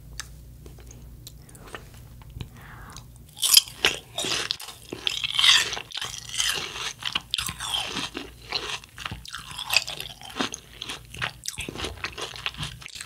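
A mouthful of watermelon being bitten and chewed, crunching noises that start about three and a half seconds in and keep coming in quick, irregular bites.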